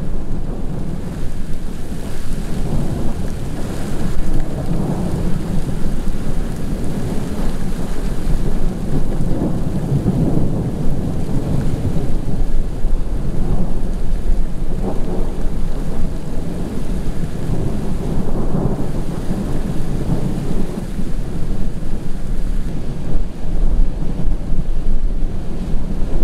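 Thunder from a supercell rumbling almost without pause, swelling and fading in long rolls, over a steady hiss of rain.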